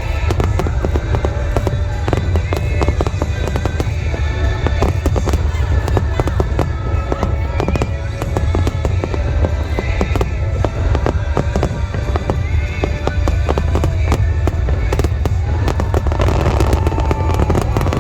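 A fireworks display with shells bursting in a rapid, unbroken barrage: many sharp bangs and crackles a second over a heavy continuous rumble. Music plays underneath.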